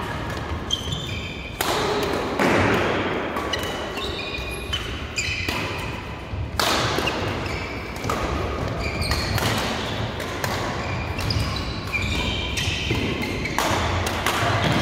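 Badminton rally: sharp racket hits on a shuttlecock at irregular intervals, mixed with many short, high squeaks of court shoes on the floor mats.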